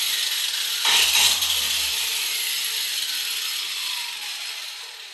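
Cheap 15-euro angle grinder sanding a plastered stone wall: a loud, even rushing grind that swells about a second in and grows quieter toward the end.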